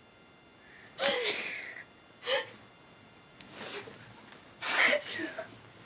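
A young woman's breathy, gasping laughter: four short bursts of air with pauses between them.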